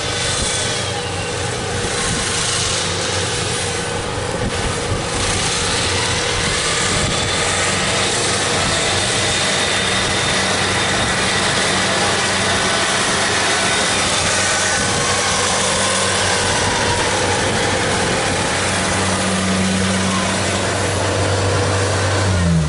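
Rice combine harvester running steadily, its diesel engine hum under the broad rushing noise of the cutting and threshing machinery.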